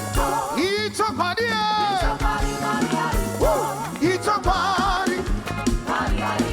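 Upbeat gospel praise music with a steady bass drum beat and a bending, wavering lead melody over a band.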